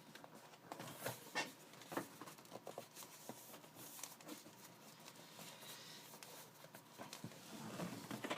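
A cardboard shipping box being opened by hand: faint tearing and rustling, with scattered small clicks and knocks.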